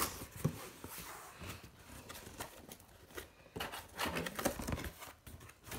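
Cardboard shipping box being torn and pulled open by hand: irregular rustling, scraping and tearing of the cardboard flaps, busier a little past the middle.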